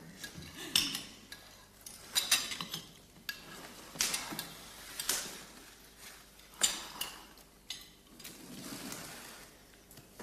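Cutlery and crockery clinking and knocking: irregular sharp clinks of plates and utensils being handled, with quieter scraping between them.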